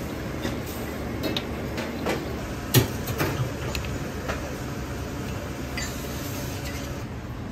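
Restaurant kitchen noise: a steady low hum with scattered clinks and knocks of dishes and utensils. The loudest is a sharp knock a little under three seconds in.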